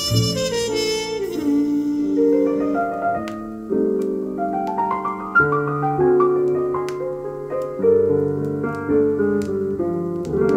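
A 1950s jazz record playing on a turntable through electrostatic loudspeakers. A horn line ends about a second in. A piano solo follows over walking bass, with light cymbal strokes.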